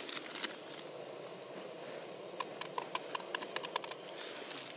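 A metal spoon clicking and scraping against a collapsible silicone cup as hot chocolate is stirred, the clicks coming in a quick run from about two and a half seconds in, over a steady hiss.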